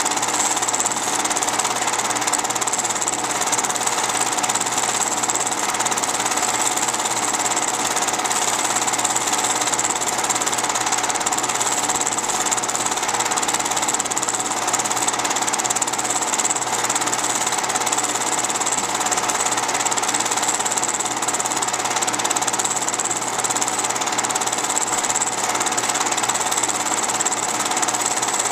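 Film projector running, a steady mechanical rattle and whirr that does not change.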